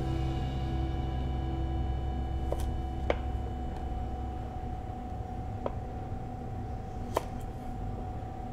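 Chef's knife cutting artichoke quarters on a plastic cutting board: four short, sharp taps spread over several seconds where the blade meets the board, over soft background music.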